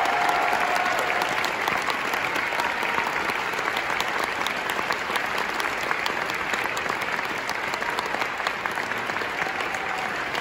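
Theatre audience applauding steadily, a dense continuous patter of many hands clapping for the dancers' bows, with a voice or two calling out in the first second.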